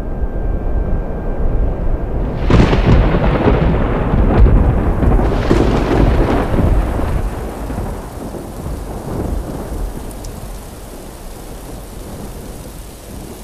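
Thunderstorm: thunder rumbling over steady rain, with a loud crack about two and a half seconds in and another peak a few seconds later, then the rumble slowly dies away.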